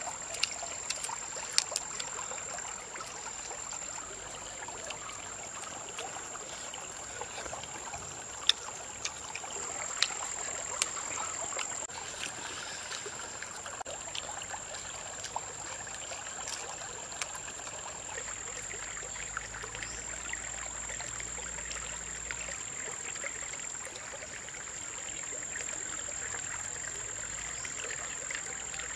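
Shallow stream trickling over stones, a steady rush of water, with scattered sharp clicks on top of it, most of them in the first half. A thin, steady high-pitched whine runs underneath.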